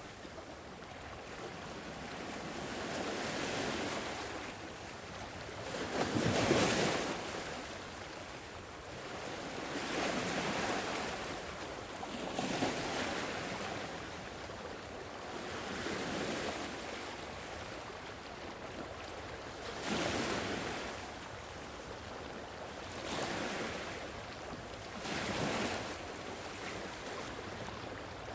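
Sea waves washing onto a shore, one surge of surf every few seconds, each swelling and falling away. The largest wave breaks about six seconds in.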